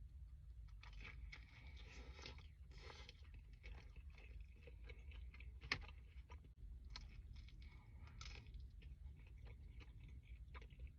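Close-miked chewing and crunching of food, with irregular crisp clicks and crunches and one sharp click a little past halfway.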